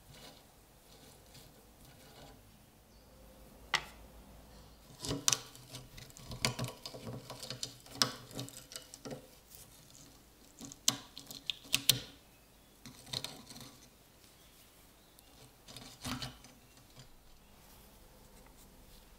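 Irregular sharp metal clicks and short scrapes as a rusted grip screw and nut are worked loose from an old bayonet with a small steel tool, busiest in the middle, with a last few taps as the parts are handled and set down.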